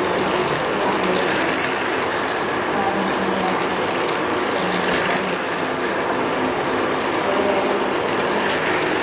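Battery-powered toy train running on its plastic track, its small motor and gears whirring steadily.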